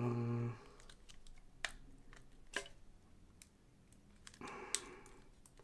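A few faint, sharp clicks and taps, spaced about a second apart, as hands handle and turn over the small plastic body of a dashcam.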